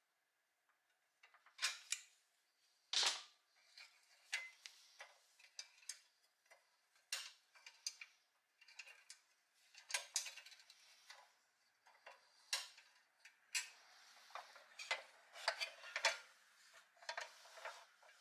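Irregular metallic clicks, taps and clinks as a pressed-steel Tonka toy dump truck is handled, its dump bed's hinge pin worked in with needle-nose pliers. The loudest knock comes about three seconds in.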